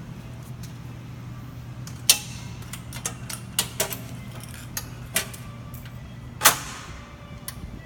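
Boyar Schultz #2 profile grinder running, its electric motor giving a steady low hum. Several sharp, irregular clicks and knocks sound over it, the loudest about two-thirds of the way through.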